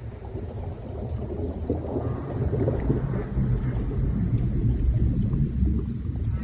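Low rumbling in an underwater whale-song recording, swelling in loudness over the first two seconds or so.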